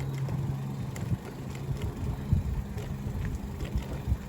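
Bicycle riding along: a steady low hum and rumble of the tyres and wind on the microphone, with scattered light clicks.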